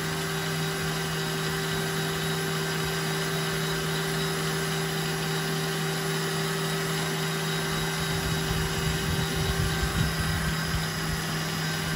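Electric stand mixer running steadily on high speed, its wire whisk beating egg whites and cream of tartar into a meringue that is turning pale and frothy. A constant motor hum with a whirring whisk.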